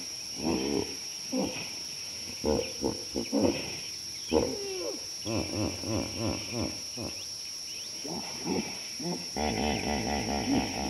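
Wild animal calls: a run of many short pitched calls in quick succession, easing off for a moment near the end and then coming thick again, over a steady high drone.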